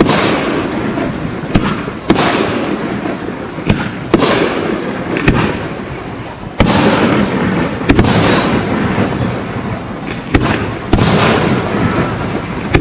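Aerial fireworks shells bursting, a sharp bang every one to two seconds, each trailing off in a long echo.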